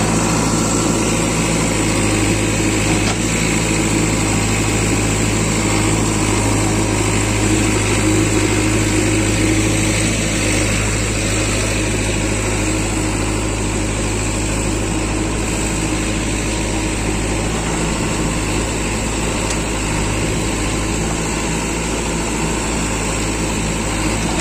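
JCB 3DX backhoe loader's diesel engine running steadily, close by, while its backhoe digs.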